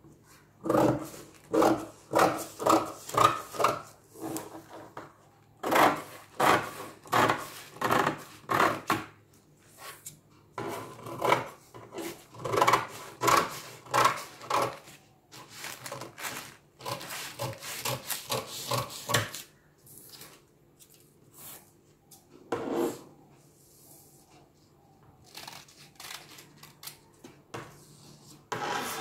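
Large dressmaking shears cutting through a folded sheet of paper pattern: a series of snips, about two to three a second, in four runs with short pauses over the first twenty seconds, then only a few scattered cuts.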